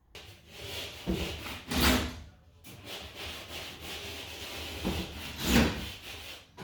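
Sheetrock being handled and worked, with rough rubbing and scraping against the board and two louder scrapes, about two seconds in and about five and a half seconds in.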